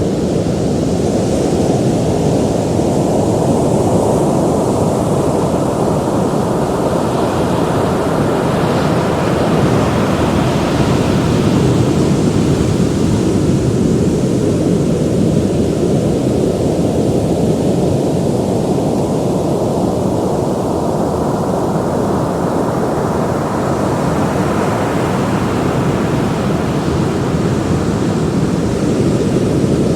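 Ocean surf: a steady low rumble of waves breaking and washing in, slowly swelling and easing, fuller in the first few seconds and again toward the end.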